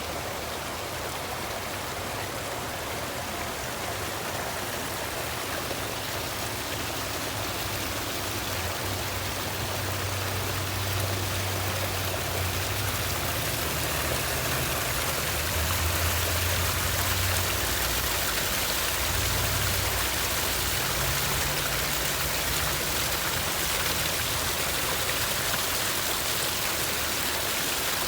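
Water from a garden water feature rushing and splashing steadily, growing slightly louder after several seconds, with a low rumble underneath for a stretch in the middle.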